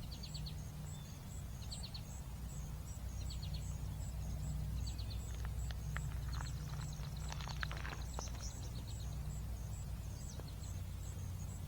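Outdoor wildlife ambience: a high, even chirping pulses a few times a second, typical of an insect, while a bird repeats a short, rapid trilled note about every one and a half seconds. A steady low rumble runs underneath, with a few light clicks about halfway through.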